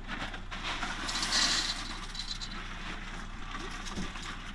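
Dry pasta being poured into a pot of sauce, a brief rattling hiss that peaks about a second in, over a steady low hum.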